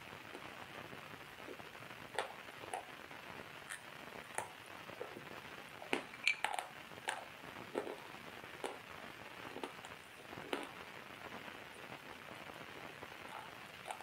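Water drops falling one at a time, irregular plinks with a brief ringing pitch at about one a second, over a steady hiss. A few come in a quick cluster about six seconds in.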